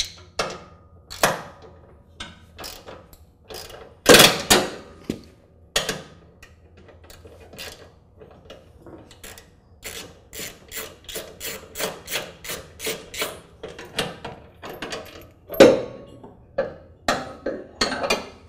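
Socket ratchet wrench clicking as bolts on a lawn tractor's mower-deck belt guard are undone, with a steady run of about three clicks a second in the middle. Scattered knocks of steel tools on metal, with two louder metal clanks, one about four seconds in and one near the end.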